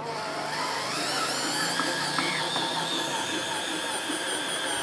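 Makita cordless drill running at a steady speed, turning the auger of a hand-crank cast-iron meat mincer, with a steady motor whine.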